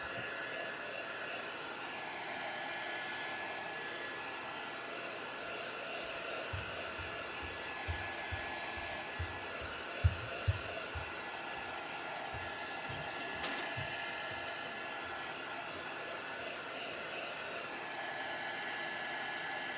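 Craft heat tool blowing steadily as it dries chalk paste, an even rush of air with a faint steady whine. A handful of soft low knocks from handling come in the middle.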